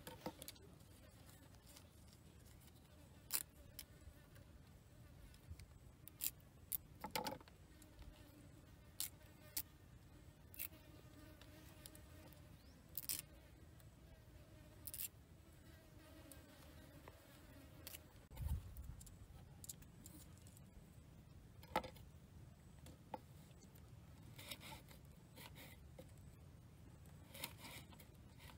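Scattered light taps and clicks of a knife and hands working on a wooden cutting board while red chilies are cut, with a fly buzzing faintly for several seconds in the middle.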